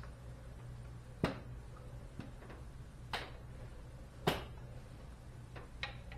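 A few sharp clicks and light knocks of metal parts as an aftermarket motorcycle forward control is handled and fitted against the frame by hand: three clearer clicks spread over a few seconds, then some fainter ones, over a low steady hum.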